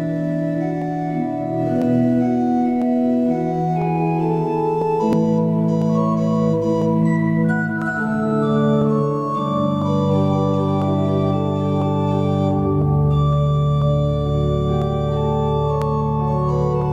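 Organ playing slow, sustained chords that change every second or two, with a deep bass note joining about thirteen seconds in.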